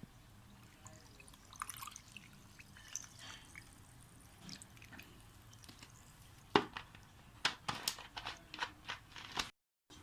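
Small sharp clicks and taps of kitchen food preparation, sparse and faint at first, then louder and more frequent in the last few seconds, before the sound cuts out briefly.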